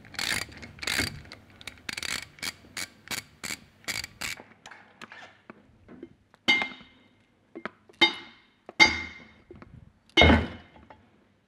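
A ratchet wrench clicking steadily, about four clicks a second, as the Allen screws holding the shaft's bearing cover are undone on a DESMI NSL centrifugal pump. From about six seconds in there are four separate mallet blows with a short metallic ring, knocking the shaft and bearing cover loose from the pump housing.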